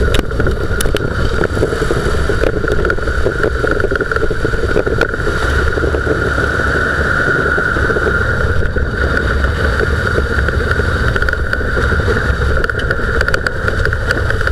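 Front wheel hub bearing and tyre noise of a Dodge Durango on the move, picked up at the front suspension: a steady low rumble and growl with a steady hum above it, and a few light clicks. The growl comes from a worn front wheel bearing.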